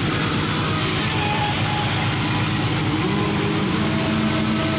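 Fishing boat's engine running steadily, a deep even drone. Its pitch steps up slightly about three seconds in.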